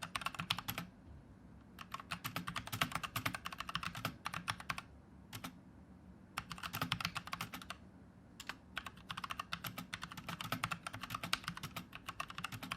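Typing on a Tecware Phantom TKL mechanical keyboard with Outemu brown switches, in quick runs of key clicks with short pauses between them. The switches are a little quieter than Cherry MX.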